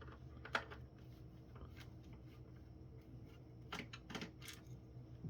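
Faint scattered clicks and taps of a screwdriver and hands on the plastic housing of a conference phone base during disassembly, with a small cluster about four seconds in, over a low steady hum.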